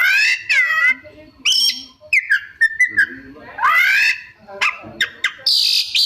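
Oriental magpie-robin (kacer) singing a varied song of separate phrases: rising whistled sweeps, level whistles and quick chips, mixed with notes mimicked from other birds.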